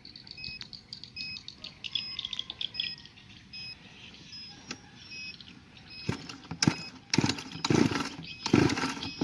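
A 23cc two-stroke grass-trimmer engine being pull-started with its recoil starter: light handling clicks, then from about six seconds in five or so sharp, rasping cord pulls in quick succession, without the engine catching.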